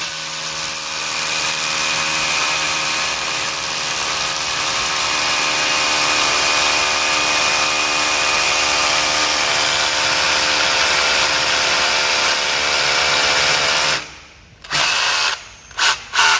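Makita DHR243 18V cordless rotary hammer drilling into a concrete block, running steadily for about fourteen seconds and then stopping. Three short bursts follow near the end as the trigger is pulled briefly.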